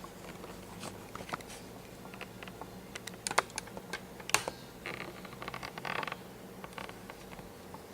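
Light, irregular taps and clicks of small balsa-wood pieces being handled and set against each other, with a brief stretch of scratchy rustling about five seconds in.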